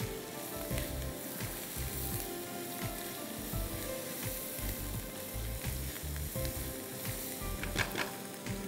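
Onions and mushrooms sizzling steadily in butter in a frying pan as they caramelize, with balsamic vinegar just added; a sharp knock near the end.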